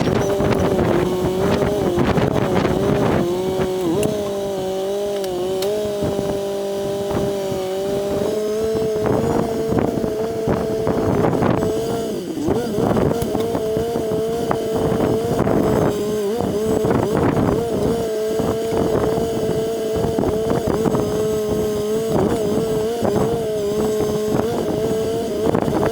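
Homemade backhoe's engine running steadily, its pitch wavering and dipping now and then, with frequent knocks and scrapes from the bucket digging in the trench.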